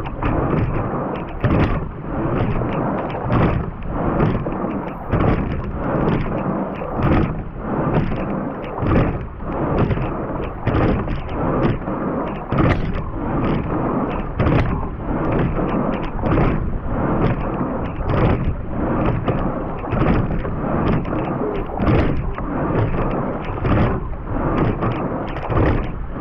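A sculling quad rowing at 32 strokes a minute: water rushing past the hull and wind on a microphone mounted on the rigger, with a knock from the oars and oarlocks on each stroke, about every two seconds.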